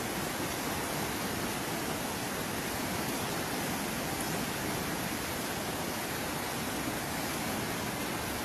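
Steady, unbroken rush of water from heavy rain and flooding.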